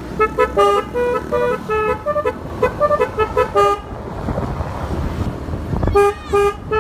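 Basuri keong telolet horn playing a quick tune of short tooting notes that step up and down in pitch. It breaks off about three and a half seconds in, with a rush of noise, and starts again near the end.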